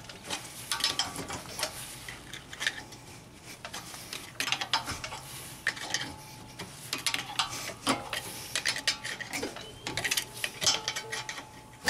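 Small pry bar working against a rear brake caliper, with repeated irregular metallic clicks and scrapes as metal catches and slips on metal.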